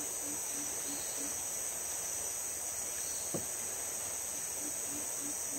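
Steady, high-pitched drone of insects in the forest. A low note repeats about three times a second in two short runs, near the start and near the end, and there is one faint click midway.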